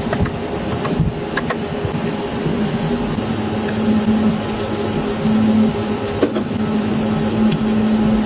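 A steady machine hum at a constant pitch, growing a little stronger about three seconds in, with scattered sharp clicks.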